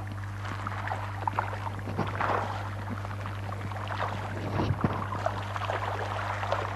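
Fish splashing at the water surface as they take thrown food, irregular splashes and slurps scattered through, over a steady low electrical hum.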